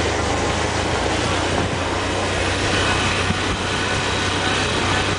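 Motorcycle engine running steadily under a constant rushing noise.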